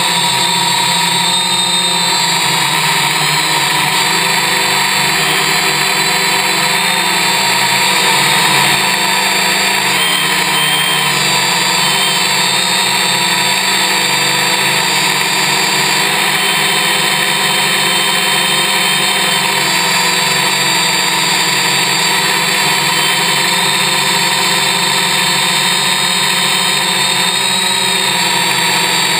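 A Y6 multicopter's six electric motors and propellers whining steadily in flight, with several tones that drift slightly up and down in pitch.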